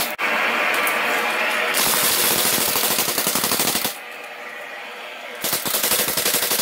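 Mechanical power hammer pounding a hot steel billet in a rapid run of blows, forge-welding and drawing it out. The blows go softer for a second or so past the middle, then come back loud.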